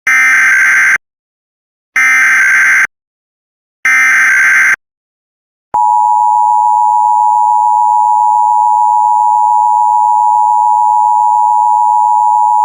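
Emergency Alert System broadcast opening: the SAME digital header sounds as three roughly one-second bursts of warbling data tones, a second apart. About six seconds in, the steady two-tone EAS attention signal starts and holds, marking the start of a new emergency alert.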